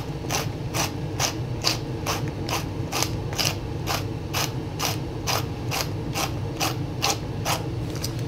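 Hand pepper mill grinding peppercorns, twisted back and forth so that it gives a regular ratcheting click about twice a second.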